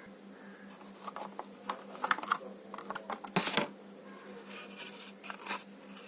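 Irregular clicks and scratchy taps from small hard objects being handled, in clusters with the loudest about halfway through, over a steady low electrical hum.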